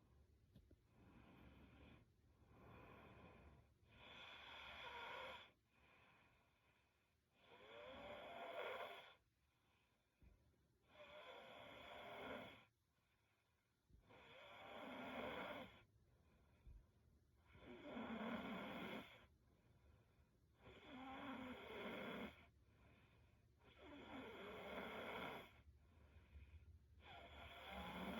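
A young woman snoring faintly in her sleep. There is a slow, even breath about every three and a half seconds, and most of them carry a soft snore.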